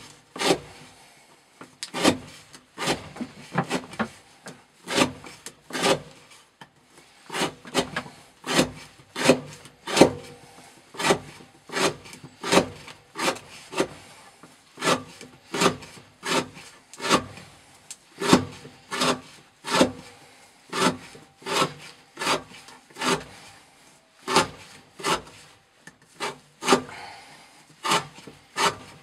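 A CPM 15V steel knife blade shaving curls off the end of a wooden board, one sharp scraping cut about every two-thirds of a second in a steady rhythm.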